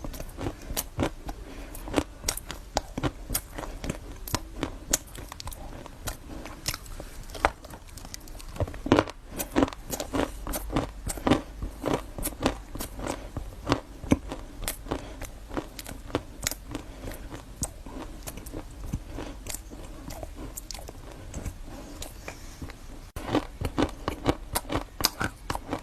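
A person biting and chewing crunchy food close to the microphone: many sharp, irregular crunches and crackles, several a second, with no pause.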